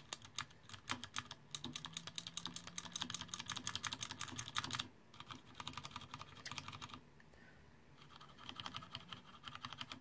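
Cherry MX Blue mechanical keyboard switch pressed over and over on a switch tester: a rapid run of sharp clicks, the switch's click jacket snapping each time it actuates. The clicking thins out about five seconds in, stops for about a second, then starts again near the end.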